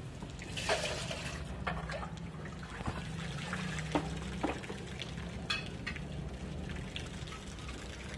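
A thin stream of water pouring from a pipe into a shallow river, a steady splashing trickle, with a few short clicks and knocks scattered through it.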